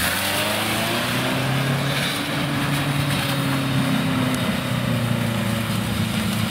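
Opel Frontera Sport's 2.2 DTi four-cylinder turbodiesel pulling under load through grass and mud off-road. The engine note rises over the first couple of seconds, then holds steady.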